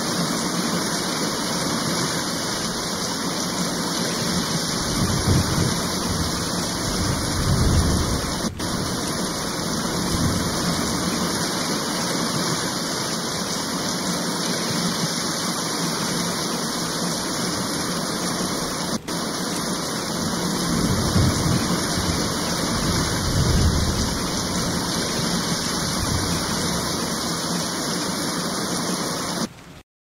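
Steady, heavy rain hissing, with low rumbles of thunder swelling up twice, about a fifth of the way in and again past two-thirds. It cuts off suddenly at the very end.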